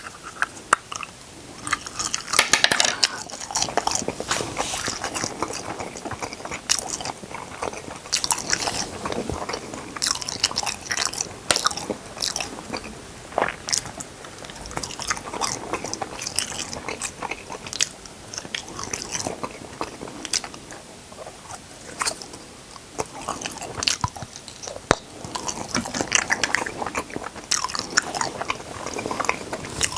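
Close-miked eating: a person biting, crunching and chewing food, with many irregular sharp crunches.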